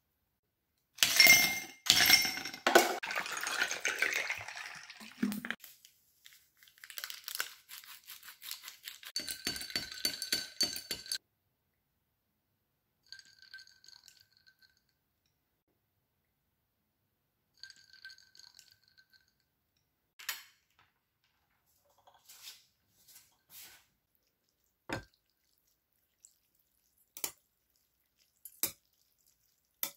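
Ice clattering and clinking in a cup, then liquid poured over the ice with a dense crackle. Short ringing clinks follow as the iced lemon drink is stirred with a straw. Later come scattered light taps and clicks of chopsticks against a bowl.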